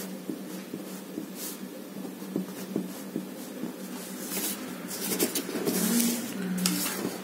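Pencil writing on paper: a run of short scratching strokes, thickest a little past the middle, over a steady low hum.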